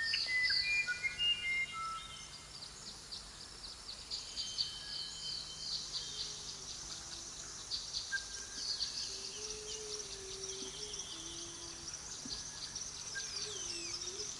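Forest birds and insects: dense, fast, high-pitched chirping throughout, with several clear whistled bird notes in the first two seconds.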